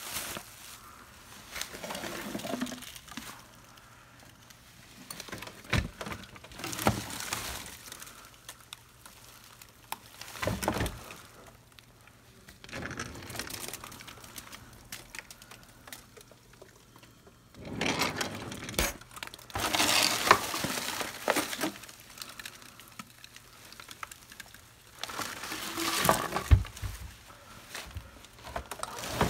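Intermittent crinkling and rustling of plastic with scattered knocks and clicks, from handling noise as objects are moved and brushed against at close range.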